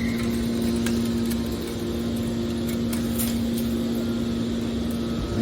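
Metal shear baler's hydraulic power unit running steadily, a constant mechanical hum with a few faint knocks.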